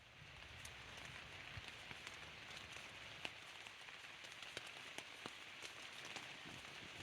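Steady rain falling, a soft even hiss with scattered individual drops ticking sharply on a nearby surface.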